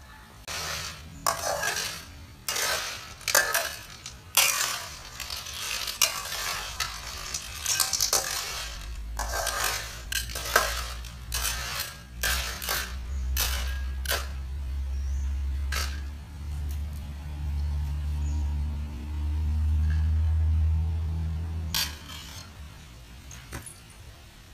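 Hard objects clattering and scraping, the kind of clinking made when cooking shellfish and utensils are handled in a pot or bowl. The clatter is busiest in the first half and thins out later, and a low steady rumble runs under the second half.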